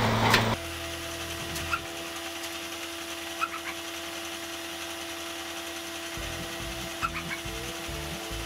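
Steady motor hum at a small coke forge while a knife blade is heated, with a few faint light clicks of tongs against the coals and blade.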